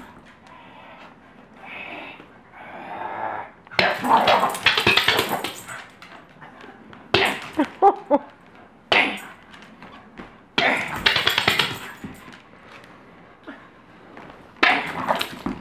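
A dog vocalising in play, growling and whining, while it tussles with a bowling pin. There are several loud noisy bursts of scuffling and a cluster of clicks and knocks about halfway through.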